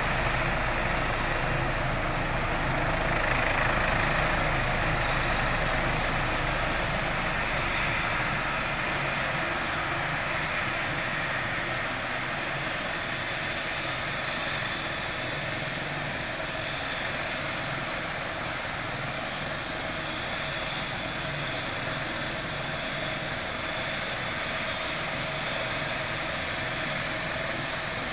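Eurocopter EC135 rescue helicopter idling on the helipad with its engines running and main rotor turning: a steady high turbine whine over rotor noise, with the deeper rumble easing after about ten seconds.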